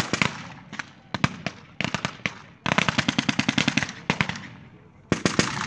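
Automatic weapons firing blank rounds in bursts of rapid fire: a short burst at the start, a couple of single shots, then a longer burst lasting about a second in the middle, and another burst starting near the end.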